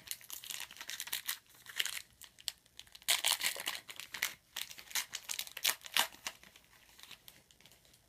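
Wrapper of a 2013 Rookies & Stars football card pack being torn open and crinkled by hand: a run of irregular crackling rustles that dies away about seven seconds in.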